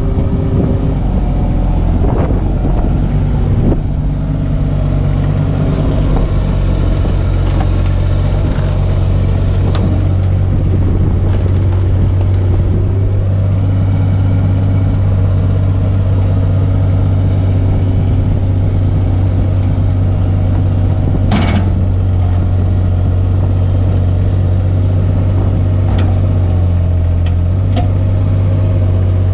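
Kubota U17-3 mini excavator's diesel engine running steadily close up, with the pitch of its drone shifting a little as the boom and arm are moved. A single sharp knock about two-thirds of the way through.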